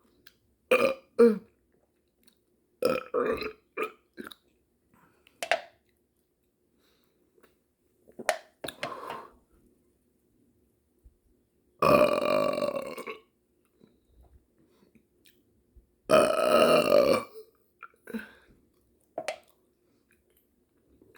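A person burping, with two long, loud burps about four seconds apart, each lasting about a second. Several shorter, quieter sounds come before and after them.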